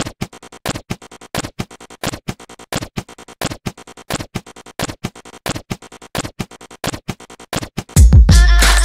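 Intro sound effect of rapid, evenly repeating sharp clicks, a stronger click about every 0.7 s with lighter ones between. Near the end it gives way to loud music with a heavy deep bass.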